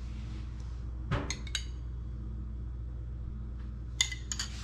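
A metal spoon clinking against a small ceramic bowl: a few light, ringing clinks about a second in, and another quick cluster near the end, over a steady low hum.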